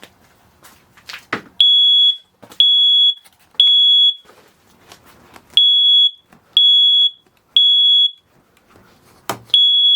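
Battery-operated combination photoelectric smoke and carbon monoxide alarm sounding after a dose of aerosol test smoke. Loud, high beeps about half a second long come in groups of three, one a second, with a longer pause between groups. This is the temporal-three pattern that signals smoke.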